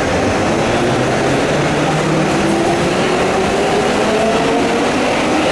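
Subway train pulling out of the station: a steady rumble of wheels on track, with a motor whine that rises in pitch as the train picks up speed.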